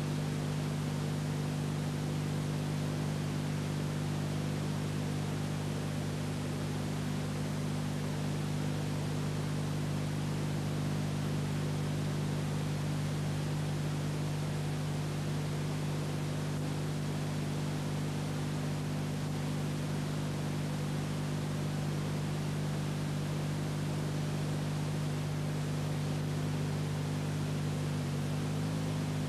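Steady hiss with a low, constant hum and no other sound: the background noise of an old silent-film transfer.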